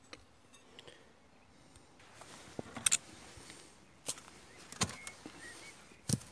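Handling noises at a beehive: a few sharp knocks and clicks, spaced about a second apart in the second half, over faint bee buzzing.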